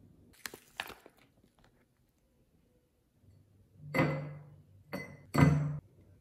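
A few light clicks, then a frozen milk-and-coffee ice cube set into a drinking glass with tongs: three clinks against the glass, the first and last loudest, each ringing briefly.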